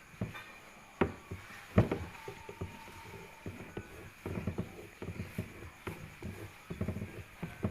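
Hands pressing and patting roti canai dough on a work surface: irregular soft taps and thumps, with two louder knocks about one and two seconds in.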